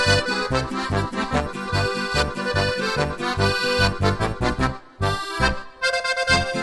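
Zupan piano accordion playing a lively Oberkrainer tune, with a steady oom-pah bass-and-chord pulse under the melody. The playing breaks off briefly twice about five seconds in.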